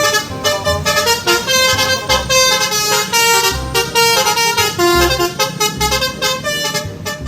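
Multi-tone telolet basuri bus air horn playing a melody note by note, with low thumps underneath.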